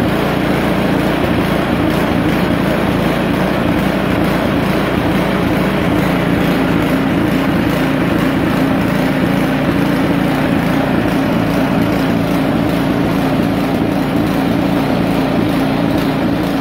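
Poulan Pro snowblower's small gasoline engine running loud and fairly steady at idle. The owner says this engine surges in idle.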